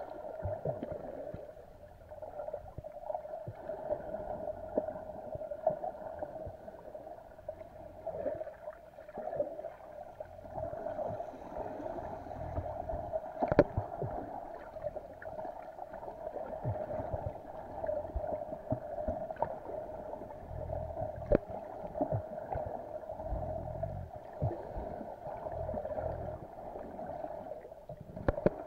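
Underwater sound picked up by a camera held below the sea surface: a steady muffled hum with scattered clicks and crackles and the gurgle of moving water.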